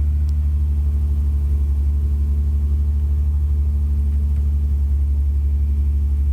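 Excavator's diesel engine running steadily at constant speed, a loud low drone with a fast, even throb.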